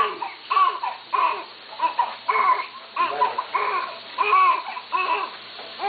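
Newborn baby crying in short, repeated wails, about two a second.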